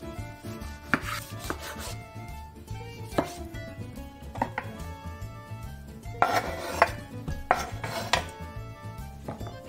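Chef's knife cutting a tomato on a wooden cutting board, with a separate knock of the blade on the board at each cut. From about six seconds in, louder scrapes as the blade sweeps the diced tomato across the board into a stainless steel bowl.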